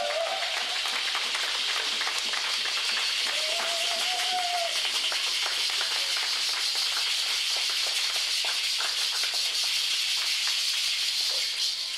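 Dancers' rattles, including seed-pod ankle rattles, shaking together in a dense, continuous rattle. A brief voice is heard about four seconds in.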